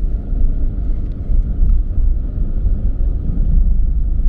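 A car driving along a street, heard from inside the cabin: a steady low rumble of engine and road noise.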